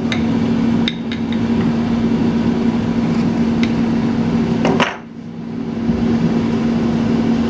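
Adjustable wrench working a brass jet into a Zenith carburetor body: a few light metallic clicks, with a louder clack near five seconds, over a steady background hum.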